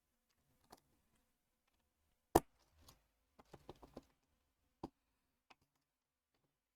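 Hard plastic Lego Technic parts clicking and tapping as they are handled and fitted together: scattered sharp clicks, one louder snap a little over two seconds in, then a quick run of about six small clicks.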